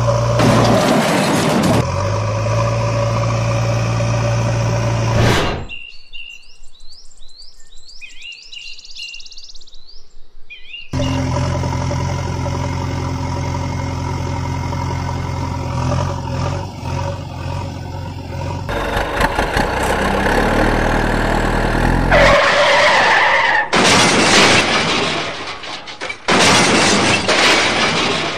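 Dubbed-in engine sound effect for toy tractors and backhoe loaders: a steady engine drone that cuts off abruptly, leaving a few seconds of faint chirps, then resumes. In the last third it gives way to loud bursts of rushing noise that start and stop abruptly.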